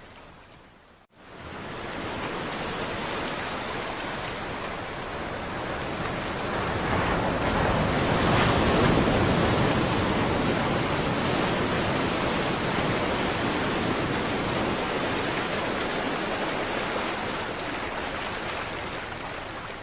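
Sea waves breaking and washing on a shore, a steady rush that swells to its loudest about eight seconds in and then slowly eases. It briefly fades out and comes back about a second in.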